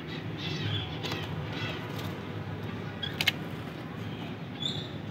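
Small birds chirping in short repeated calls, with a sharp knock a little over three seconds in, over a steady low hum.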